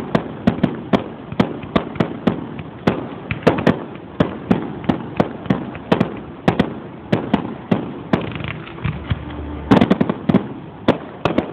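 Fireworks display: a steady string of sharp bangs, two or three a second, with a quick dense cluster of bangs near the end.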